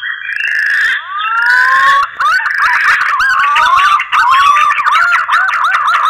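Green pigeons (punai) giving their mating calls: a fast, continuous run of whistled notes that rise and fall, with a few long rising whistles about a second in.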